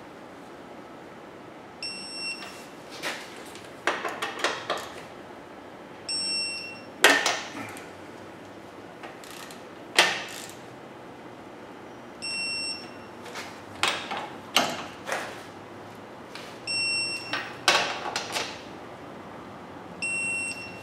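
Digital torque wrench tightening the ring-gear bolts on a rear differential to 80 ft-lb: ratchet clicks and metal knocks, and a short electronic beep five times as each bolt reaches the set torque.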